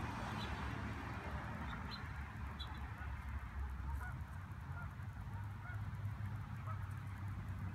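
Waterfowl calling with scattered short calls over a steady low rumble.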